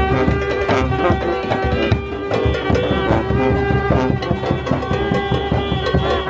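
A Junkanoo band playing live: goatskin hand drums beating a fast, dense rhythm while brass horns, among them a sousaphone, hold long notes over it.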